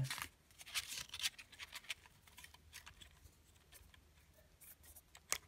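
Paper and card clothing hang tags being handled and flipped with the fingers. There is a quick run of soft rustles and clicks in the first second or so, then faint handling, and one sharp click near the end.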